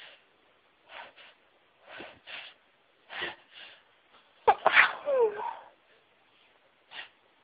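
A woman's sneeze. A run of short gasping inhales grows louder over about four seconds, then a loud, high-pitched sneeze comes about four and a half seconds in, followed by a short breath.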